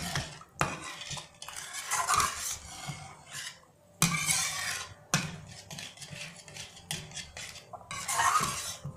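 Flat metal spatula stirring and scraping thin gravy around a metal kadhai, with irregular scrapes and a few sharp clinks of the spatula against the pan.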